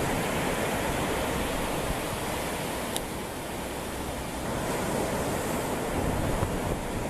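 Steady rushing noise, with a brief click about three seconds in.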